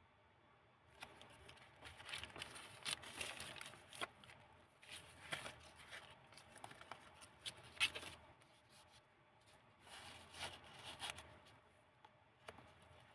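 Pages of a handmade book made from old book paper being turned and handled: soft rustling and crinkling in several uneven bursts, the sharpest near eight seconds in.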